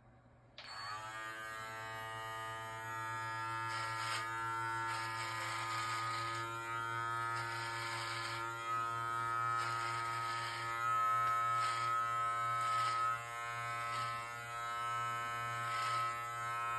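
Live Bearded MT-1 beard trimmer switching on about half a second in and buzzing steadily, the sound wavering as the guarded blade cuts through beard hair on the cheek.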